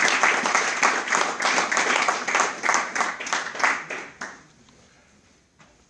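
A small audience applauding with hand claps, dying away about four seconds in.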